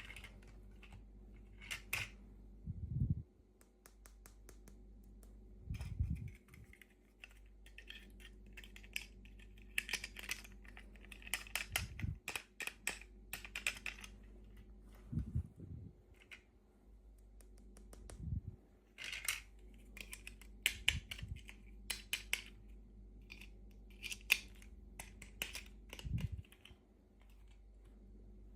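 Hands unboxing small plastic miniature toys: plastic packaging crinkling and small pieces clicking, with a soft thump every few seconds as things are set down.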